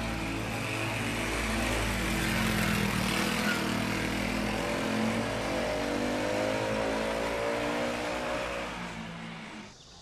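Small motorcycle engine running and rising in pitch as it speeds up, then fading away just before the end.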